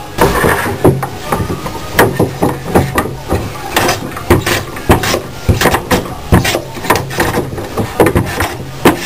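A series of sharp knocks and clacks, irregular, roughly two a second, over a steady low hum.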